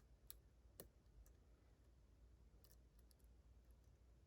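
Faint, scattered clicks of a lock pick and tension wrench working the pins of a Ruko 600 lock cylinder, a few light ticks with a small cluster about three seconds in.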